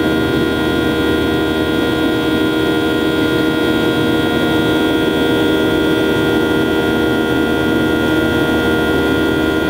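Steady cabin noise inside a Boeing 737-800 in flight: the drone of its CFM56-7B turbofan engines and the airflow, with several held steady tones over a constant rush.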